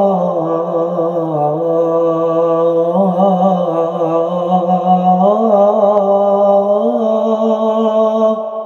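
A man singing the adhan (Islamic call to prayer) in a melismatic Middle Eastern style. He holds one long phrase on wavering, ornamented notes, and it fades out near the end.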